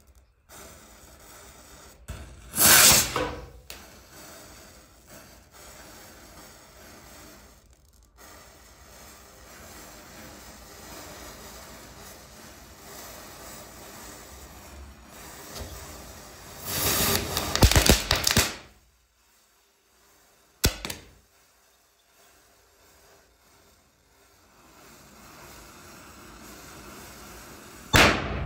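A chain of standing matchsticks burning, with a steady crackling hiss as the flame runs along them. There are several louder bursts where they flare up or a firecracker goes off: one about three seconds in, a longer crackling one of a couple of seconds near the middle, and a short crack a little later. It ends in a sudden loud firecracker bang.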